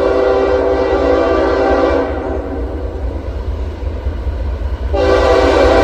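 Approaching CSX freight locomotive sounding its multi-chime air horn: one long blast that stops about two seconds in, then another that starts about five seconds in, over a steady low rumble.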